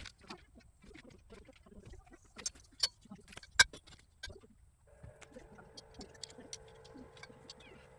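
Scattered sharp clicks and knocks, the loudest about three and a half seconds in. From about five seconds a steady motor hum joins them.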